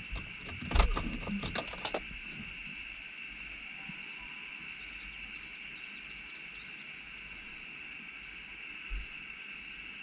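Insects droning steadily in the summer heat, with a higher chirp pulsing about one and a half times a second over it. A few clicks and knocks in the first two seconds.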